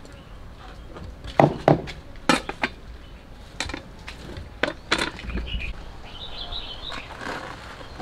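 Scattered sharp knocks and clinks as things are handled at a plastic basin, about seven in the first five seconds, with birds chirping faintly later on.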